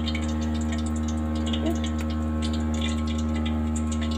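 Steady electrical hum made of several held tones, with faint soft taps and scrapes as dough rounds are pressed by hand on a wooden board.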